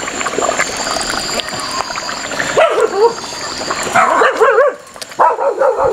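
Pork frying in hot lard in a large metal pot over a wood fire, crackling and spattering as orange and lime juice is squeezed in. Twice around the middle, a short wavering whine like a dog whimpering rises over it.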